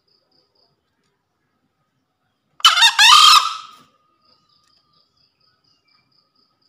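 A male green junglefowl crows once, about two and a half seconds in. It is a short, harsh, two-part crow lasting about a second.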